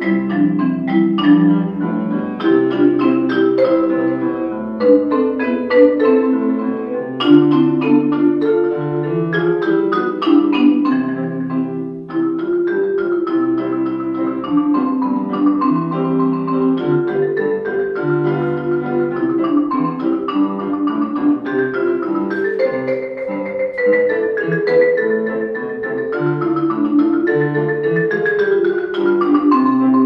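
Concert marimba played with yarn mallets in quick, flowing rising and falling runs over held lower notes, with a grand piano accompanying.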